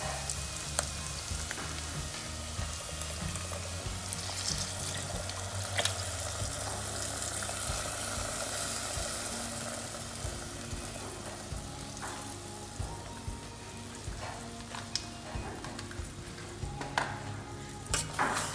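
Diced bacon and onion sizzling in a stainless steel frying pan as liquid crème fraîche is poured in, the sizzle dying down in the second half. A few sharp knocks of a wooden spoon against the pan as the cream is stirred.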